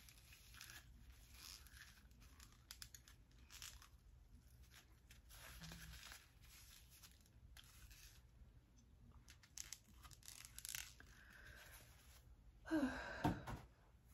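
Wad of toilet paper rubbed and wiped across the lips in short strokes: faint, soft paper rustling and crinkling as the Carmex-softened lipstick is wiped off. Near the end, a brief louder vocal noise.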